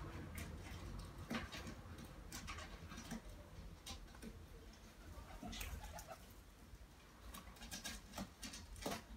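A pigeon moving about: faint, irregular taps and scratches.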